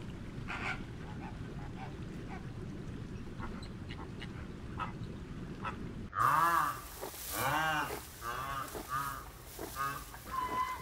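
A low, steady background rumble. About six seconds in it gives way to a run of loud, repeated animal calls, each rising and falling in pitch, at about two or three a second towards the end.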